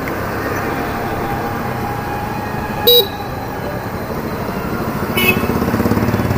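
Hero Destini 125 FI scooter's single-cylinder engine running under way, with road and traffic noise. A short, sharp horn beep sounds about three seconds in. The low rumble grows louder over the last second or so.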